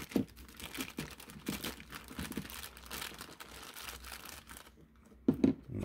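Thin clear plastic bag crinkling and crackling as it is handled and cut open with an X-Acto knife, with a sharper click just after the start and a louder knock near the end.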